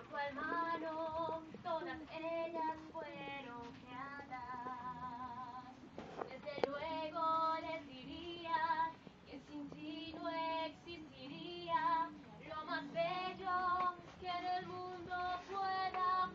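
A congregation singing together, with women's and children's voices leading, in sung phrases with short breaths between lines.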